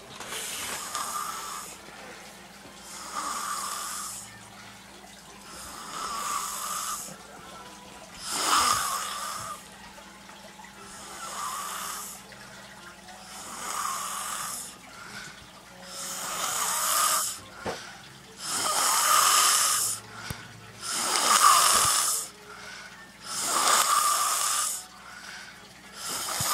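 A sleeping man snoring, one breathy snore about every two to three seconds, the snores growing louder in the second half.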